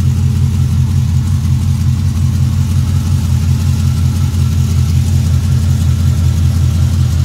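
V8 engine idling through long-tube headers and a TIG-welded stainless dual exhaust with Hooker VR304 mufflers: a loud, steady, low pulsing exhaust note.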